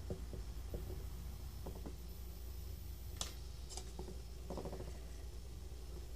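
A few faint clicks and light taps of a thin pointed tool on the dough and plate while a pattern is pressed into pitha dough, over a steady low hum. The sharpest click comes about three seconds in.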